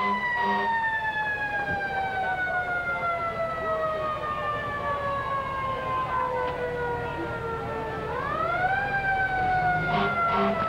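Fire engine siren slowly falling in pitch, rising again about eight seconds in and then falling once more. A short pulsing horn sounds about three times a second near the end.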